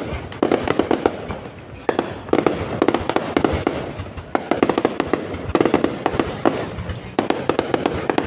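Fireworks going off in quick succession, dense clusters of sharp crackling pops that come in bursts about every second.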